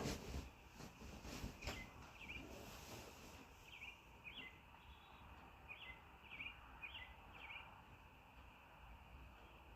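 A bird chirping faintly, a string of short, repeated high notes over a quiet outdoor background, with a few soft knocks in the first two seconds.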